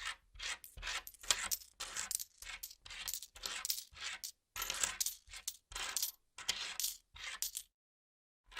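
Coins being counted by hand, clinking as they are dropped one after another onto a pile in a quick, uneven series of short clinks. It breaks off briefly near the end, then starts again.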